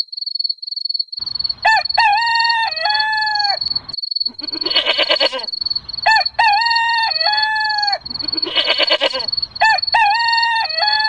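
A rooster crowing three times, about four seconds apart, each crow identical in shape. A short harsh call sounds between the crows, and a steady high chirping pulses about two or three times a second throughout.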